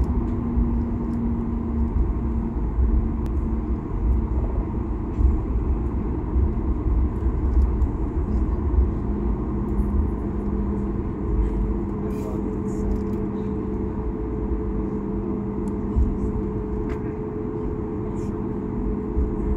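Cabin noise of a Boeing 737 MAX 8 taxiing: the CFM LEAP-1B engines run at low taxi power over an uneven low rumble from the wheels and airframe. A steady engine hum drops a little in pitch partway through, and a higher hum joins it a few seconds later.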